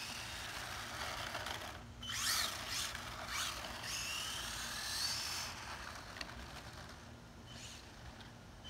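Traxxas Ken Block radio-controlled drift car's electric motor whining, rising and falling in pitch with bursts of throttle. The whine is loudest about two to five seconds in and fades near the end as the car moves off.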